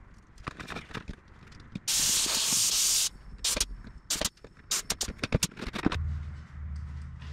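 Pneumatic rivet squeezer at work on an aluminium wing spar: a loud hiss of compressed air lasting about a second, then a quick run of sharp metallic clicks. A low steady hum starts near the end.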